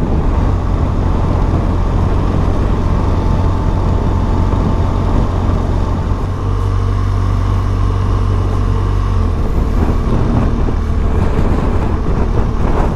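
BMW R1200GS boxer-twin engine running steadily at road speed, with wind and road noise. The engine's low hum shifts slightly about nine seconds in.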